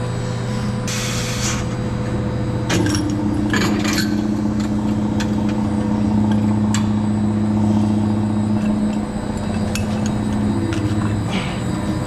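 A motor running steadily, its drone changing pitch a couple of times, with metal clanks and knocks from hose couplings being handled and a short hiss about a second in.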